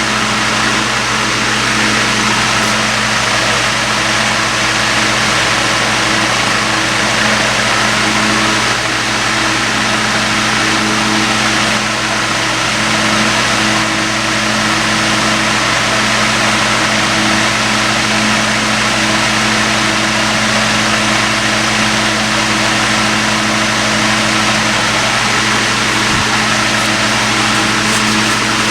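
Emerson 28646 12-inch table fan with a shaded-pole motor and brass blades, running steadily on high speed. It makes a loud, even rush of air over a constant motor hum.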